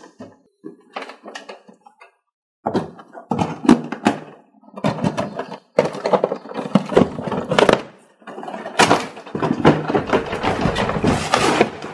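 Cardboard box and plastic packaging of a toy blaster being handled and pulled open: rustling, crinkling and clattering in bursts with short pauses, starting in earnest about two and a half seconds in.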